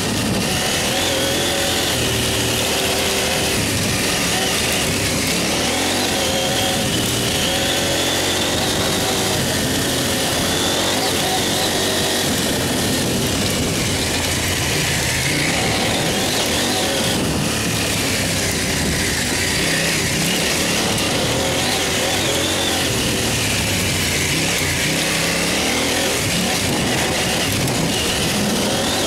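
Dirt bike engine running under load, its pitch rising and falling as the throttle is worked, over a steady rush of noise.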